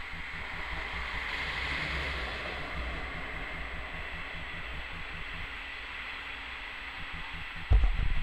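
A ČD class 810 two-axle diesel railcar pulling away from the platform: a steady rumble and hiss of engine and wheels on the rails as it draws off. A short loud thump comes near the end, and the sound cuts off right after.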